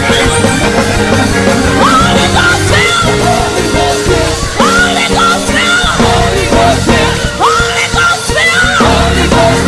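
Gospel choir singing loudly over a live band, with sustained chords and a heavy bass underneath. Voices swoop upward in pitch several times, shouted and ringing above the accompaniment.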